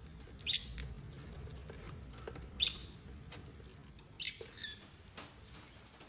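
Small parrot giving short, high chirps, four of them spread over a few seconds, with faint clicks in between.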